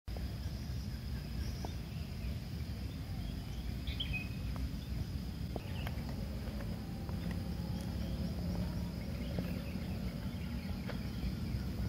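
Outdoor ambience of insects droning steadily at a high pitch over a low rumble, with a few faint bird chirps.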